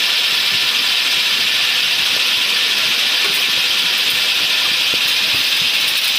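Metal lathe turning a steel bolt blank: a steady, high hiss of the turning tool cutting the metal as chips spray off, over the running machine.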